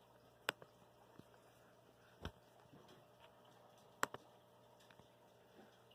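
A few faint, sharp clicks from a laptop, the loudest about four seconds in, with a duller thump about two seconds in, over near-silent room tone.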